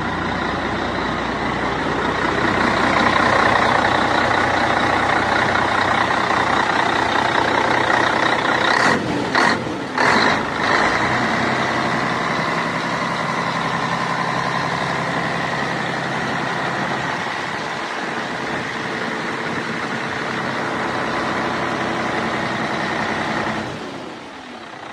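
Heavy truck diesel engine running steadily and loudly. A few short sharp bursts come about nine to ten seconds in, and the sound drops off just before the end.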